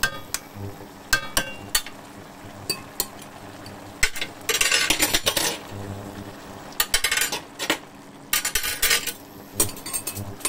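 A cooking utensil clinking and scraping in an aluminium wok while a stir-fry of whelks, pineapple and vegetables is stirred: scattered sharp clinks, with longer scraping strokes about halfway through and again a little later.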